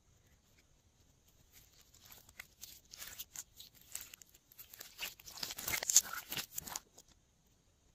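Glossy slime being stretched and pulled by hand, giving a run of quick sticky crackles and snaps that build up, are loudest shortly before the end, then stop.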